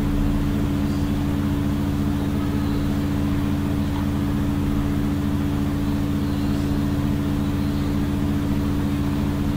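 Steady low machine hum made of several steady tones.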